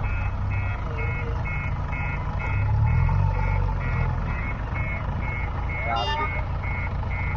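Backhoe loader's reversing alarm beeping steadily about twice a second over its diesel engine running: the machine is backing up.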